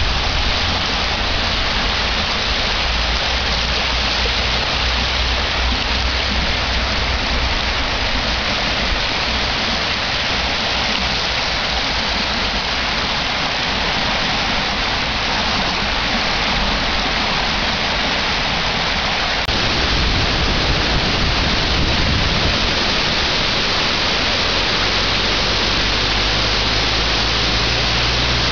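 Steady rushing of a flood-swollen stream, growing a little louder and fuller about two-thirds of the way in.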